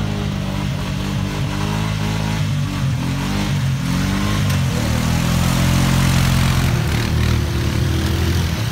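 ATV engines running close by, their revs rising and falling as the quads drive through deep muddy water, with the wash of the water hissing underneath.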